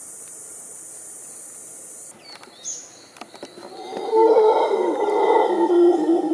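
Mantled howler monkeys howling: deep, rough, roaring calls from several animals overlapping, starting about four seconds in and staying loud. Before them, a steady high hiss cuts off about two seconds in.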